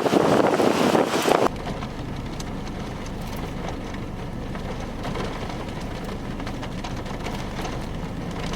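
Strong wind gusting across the microphone, which cuts off abruptly about a second and a half in, leaving a steady low rumble with a light hiss.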